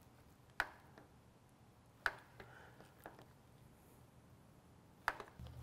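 Four faint clicks spread over a few seconds, with quiet between them, from a handheld meat marinade injector being worked into a raw pork shoulder.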